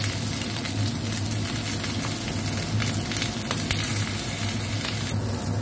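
Whole fish frying in oil in a wok: a steady sizzle with many small crackles and pops, over a steady low hum.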